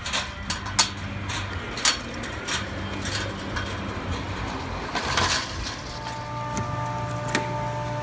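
Metal clinks, knocks and rattles of a chain-link gate and its lock being handled and swung open. From about six seconds in, a steady hum with several held tones takes over.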